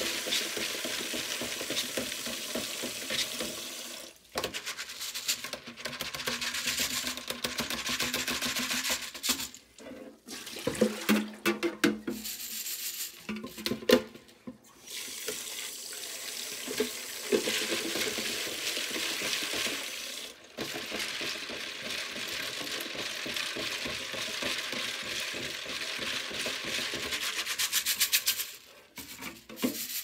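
Rinse water running steadily over small Cherry MX switch springs in a plastic salad-spinner basket as they are rubbed and shaken by hand. The flow cuts out briefly a few times, and the basket clatters now and then around the middle.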